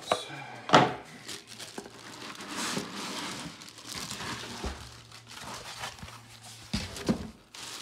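Clear plastic bag crinkling as hands grip and lift a bagged electronics unit out of its foam packaging. There is a sharp knock about a second in and a couple of thumps near the end.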